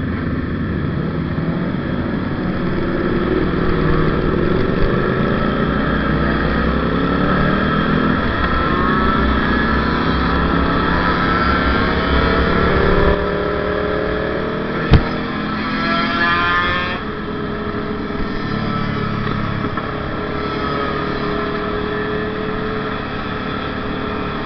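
Kawasaki Ninja RR's single-cylinder two-stroke engine and the two-stroke motorcycles around it pulling away from a standstill, revs rising through the gears several times, with wind noise. A sharp click about fifteen seconds in, then a high-pitched rising rev.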